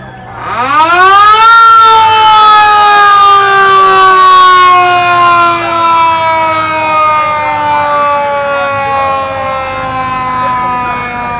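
Mechanical siren on a black-and-white sheriff's patrol car, winding up sharply in about a second and then slowly winding down in pitch.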